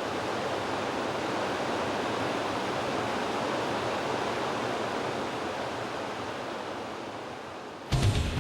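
Steady rushing of flowing river water, faded up just before it begins. Near the end, drum-led music cuts in with a sharp hit.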